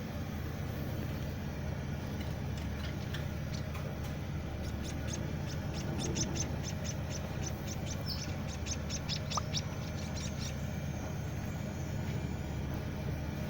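Week-old white-headed munia (emprit kaji) chick begging while being hand-fed: a rapid series of short, high chirps, about four a second, starting about a third of the way in and stopping a few seconds later, over a steady low hum.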